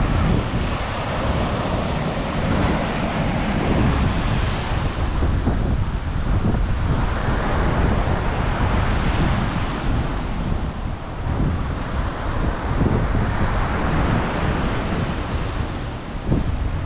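Ocean surf washing onto the beach, the hiss swelling and fading every few seconds, with wind buffeting the microphone in a constant low rumble.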